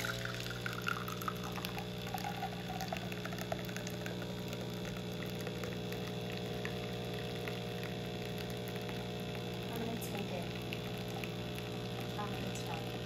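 Coffee machine pumping a thin stream of hot coffee into a mug: a steady pump hum with hissing and small sputtering clicks.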